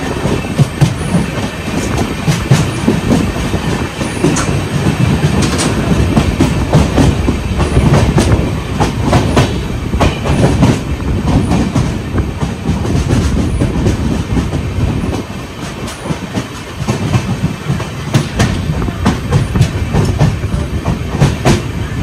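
A moving LHB passenger coach: a steady, heavy rumble of wheels on rail, with irregular sharp clicks and knocks from the track.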